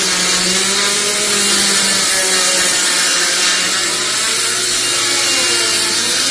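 A power tool cutting wood, running continuously with its pitch wavering slightly as the load changes.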